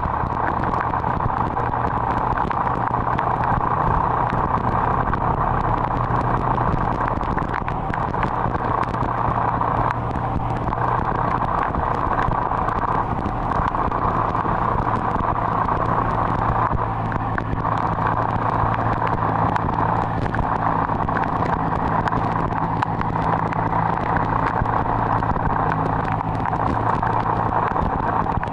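Subaru Sambar kei truck's small engine idling steadily.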